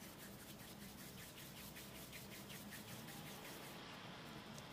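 Palms rolling a soft cornmeal dough into a ball: faint, quick, rhythmic rubbing strokes that stop near the end.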